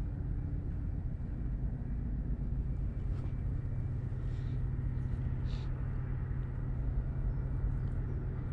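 Steady low mechanical rumble with a constant hum, like distant traffic and machinery heard across open water, with a few faint high ticks in the middle.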